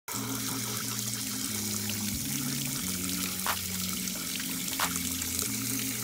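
Water running out in a steady stream through a trunnion ball valve's bore and past its seat, the sign of a seat insert leaking, over a low music bass line.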